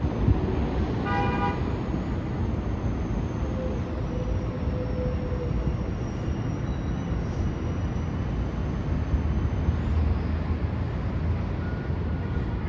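City street traffic: a steady low rumble of vehicles, with one short vehicle horn toot about a second in.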